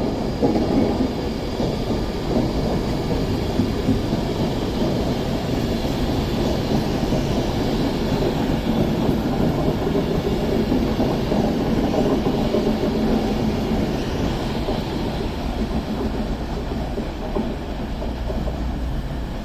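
Two coupled CrossCountry Voyager diesel-electric multiple units, led by a Class 220, running into the platform with a steady rumble of underfloor engines and wheels on rail.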